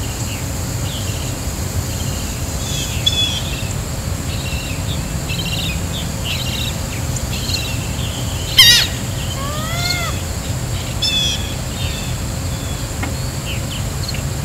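Wild birds chirping in short repeated calls over a steady low rumble, with one loud sweeping call about eight and a half seconds in, followed by a short arched call a second later.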